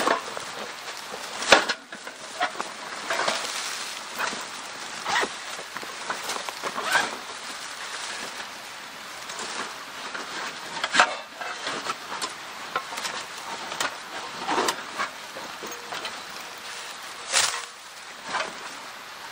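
Rustling and handling of a large fabric stuff sack, with dry leaves and grass crackling under hands and knees; irregular rustles and crackles, the sharpest about a second and a half in.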